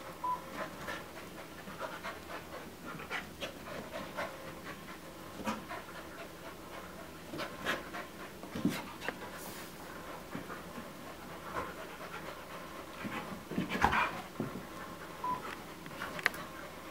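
Dogs panting, with many short clicks throughout and a louder burst about fourteen seconds in.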